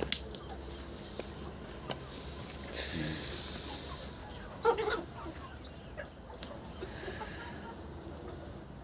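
Burning straw hissing and crackling around a goat carcass being singed, with a louder burst of hissing for about a second around the middle and a few light clicks.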